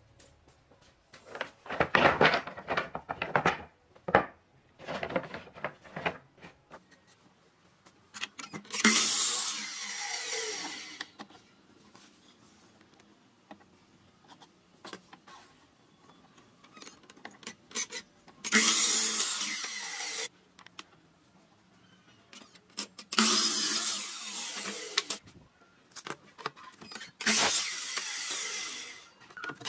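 Electric sliding miter saw making four short crosscuts through wooden pieces, each cut about two seconds long. Irregular knocks of wood being handled come in the first few seconds.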